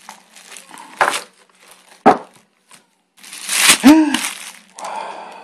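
Clear plastic wrapping crinkling as it is handled and pulled off a new clothes iron, in several separate bursts, the longest and loudest about three to four seconds in. A brief rising-and-falling tone sounds within that longest burst.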